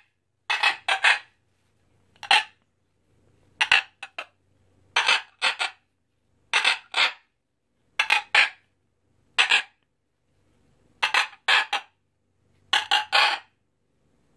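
Scarlet macaw giving short calls in quick groups of two or three, a group about every one and a half seconds.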